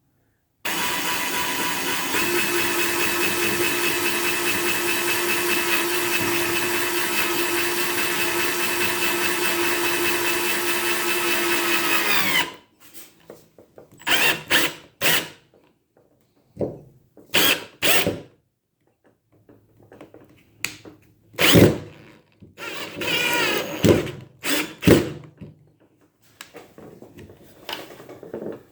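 Warrior 18 V cordless drill driver, set to its highest clutch setting, driving a screw into a 2x4 without a pilot hole. The motor runs at a steady pitch for about twelve seconds, then stops. Several short knocks and brief bursts of sound follow.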